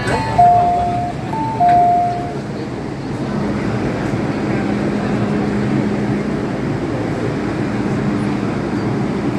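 MTR M-Train door chime: a falling two-note ding-dong sounded twice, marking the doors opening at the station. A steady hum with train and station noise follows.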